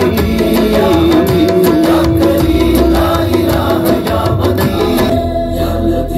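Malayalam film song music playing from a vinyl LP on a turntable: a long held note over percussion and orchestra, the upper range thinning out about five seconds in.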